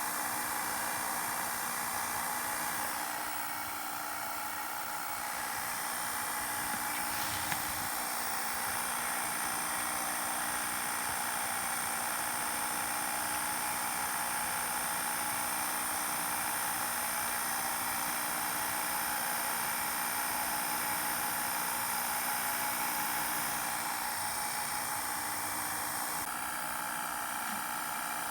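Steady mechanical whir with hiss and a few fixed high tones, with a faint tick about seven seconds in.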